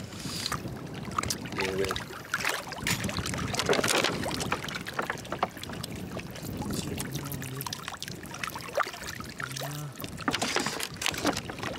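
Raw oyster shells clicking and scraping as they are handled and rinsed, with water from a plastic bottle splashing over an opened oyster, over a steady rushing background.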